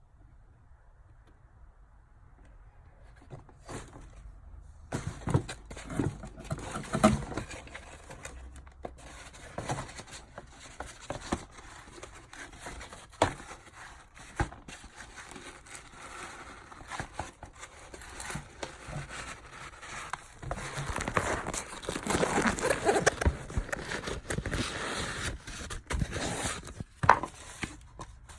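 Wrapping paper crinkling and rustling while a sneaker box is unpacked by hand, with sharp handling clicks and knocks. It starts about five seconds in and is busiest a few seconds before the end.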